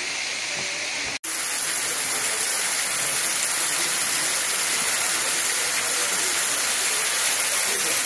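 Steady rushing hiss of a waterfall and water splashing down into a pool. It cuts out abruptly for an instant about a second in, then comes back a little louder and continues steadily.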